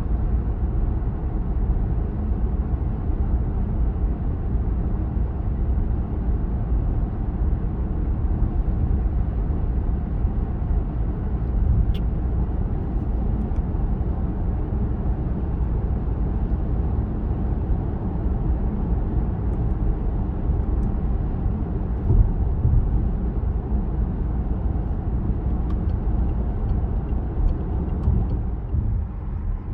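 Steady road and wind noise inside the cabin of a moving Peugeot 408 1.2 PureTech, heavy in the low rumble, with one faint click about twelve seconds in.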